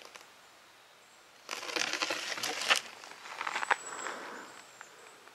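Footsteps crunching on gravel: a stretch of crunching about a second and a half in, then a fainter stretch about a second later.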